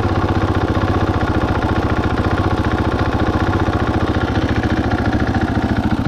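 KTM 500 single-cylinder four-stroke dirt bike engine idling in gear with a steady, even pulse, driving the chain and rear wheel with the bike up on a stand. The idle is set low, which makes the chain hitch.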